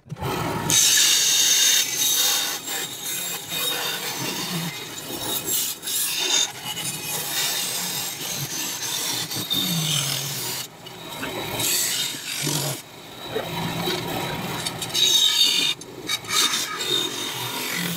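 Vertical bandsaw cutting through an aluminium bar, the blade rasping through the metal in a series of cuts with short breaks as the bar is repositioned.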